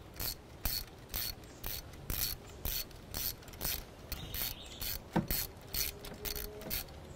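Socket ratchet wrench clicking in short, even bursts about twice a second as the handle is swung back and forth, screwing a new spark plug down into the cylinder head. A single sharper knock comes about five seconds in.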